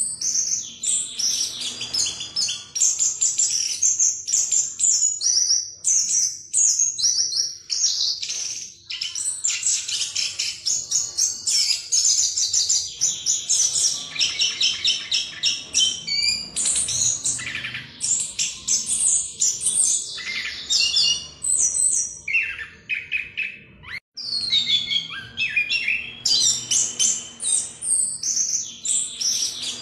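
Chestnut-capped thrush singing a long, fast, nearly unbroken run of varied whistles and trills, the rolling song that keepers call ngerol. The song breaks off for a split second about three-quarters of the way through.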